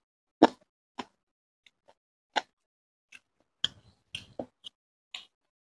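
Close-up eating sounds from a man eating rice and chicken curry by hand: about a dozen short, wet clicks and smacks at irregular intervals, the loudest just after the start.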